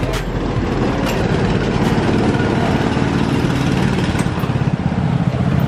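Petrol go-kart engines idling steadily with a fast, even pulse.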